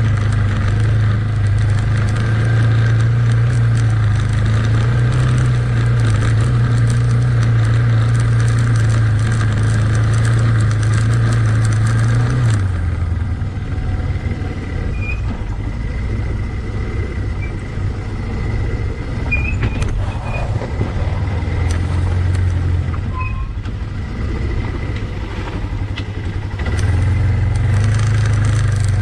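Yamaha ATV engine running as the quad is ridden along a trail, heard from the vehicle itself. It runs steadily under throttle, eases off about halfway through and runs lower and quieter, then picks up again near the end.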